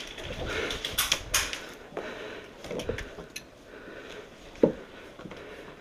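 Movement and gear noise of a player in airsoft kit: shuffling and crunching steps over rubble, with several sharp clicks and knocks, the loudest a single knock about four and a half seconds in.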